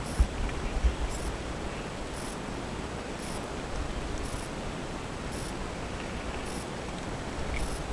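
Steady outdoor background hiss, with a few low thumps about a second in and again near the end, and a faint high pulse repeating about once a second.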